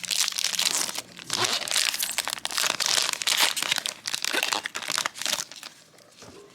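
Foil booster pack wrapper crinkling as it is handled and torn open, the crackling stopping about five and a half seconds in.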